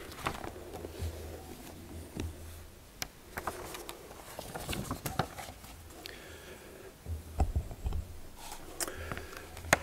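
Handling noise at a lectern picked up by its close microphones: scattered clicks and taps as a tablet and things on the lectern are handled, with a few low bumps a little past halfway.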